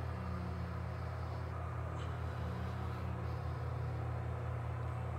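Steady low engine rumble with a slightly wavering pitch, and a few faint sniffs as tobacco held in cupped hands is smelled.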